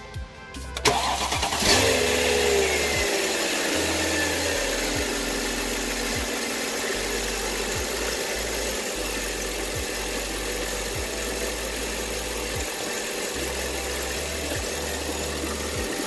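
Mercedes-Benz CLS500 V8 engine starting about a second in. The revs flare briefly, then fall over the next few seconds and settle into a steady idle. The engine is being run to check an ignition coil during a misfire diagnosis.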